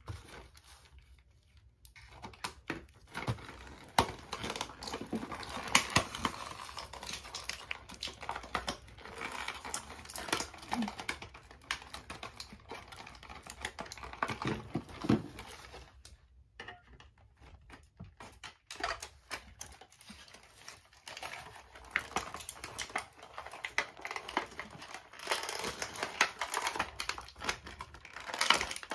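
Clear plastic packaging crinkling and a cardboard insert rustling, with many small irregular clicks and snaps, as a toy is worked free of its packaging. The handling pauses briefly twice.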